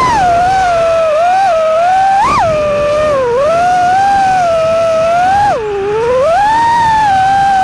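FPV quadcopter's brushless motors whining, the pitch rising and falling with the throttle. About five and a half seconds in, the throttle briefly drops: the pitch and level dip, then the whine climbs again.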